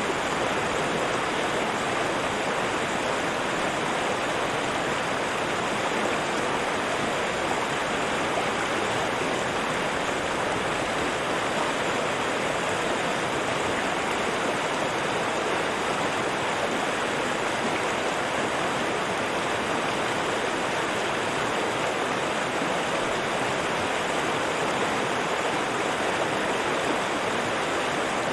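River water rushing and babbling steadily, a dense even roar of flowing water with no breaks.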